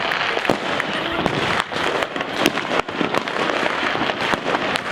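Many fireworks and firecrackers going off at once: a constant crackle under dense, irregular bangs, several a second.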